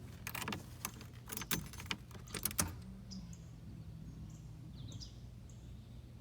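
Car keys jangling and clicking in a Buick Grand National's ignition as the key is turned to on, followed by a low steady hum from the car about three seconds in. Birds chirp faintly now and then.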